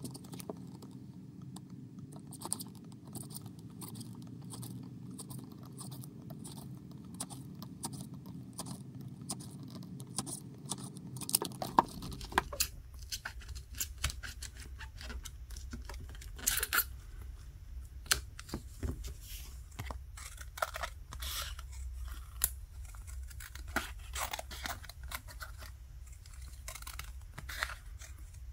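Playing cards slid and worked under the edge of a Samsung Galaxy S20's glass back to slice through its adhesive: scratchy scraping and crackling, thicker and louder after about twelve seconds, over a steady low hum. Near the end, scissors snip a playing card.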